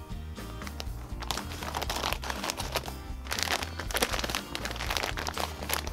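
Kinetic sand crunching and crinkling as it is scooped and packed by hand into a plastic mold cup, thickest from about a second in to near the end, over background music.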